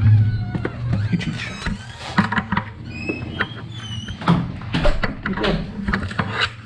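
A house door opening, then a string of footsteps and knocks as a plastic bucket is carried across a laminate floor.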